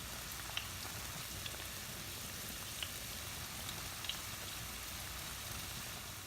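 Chopped red onions sizzling in oil in a pan: a steady hiss with a few faint pops scattered through it.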